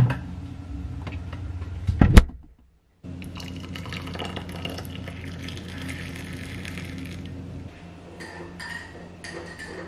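A sharp click about two seconds in, then water poured from a kettle into a mug, a steady stream lasting about five seconds before it stops.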